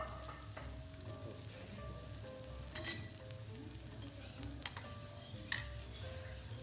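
A thick A5 wagyu fillet sizzling steadily as it sears on a teppanyaki steel griddle, with a few sharp clinks about three, four and a half and five and a half seconds in. Soft background music with held notes plays along.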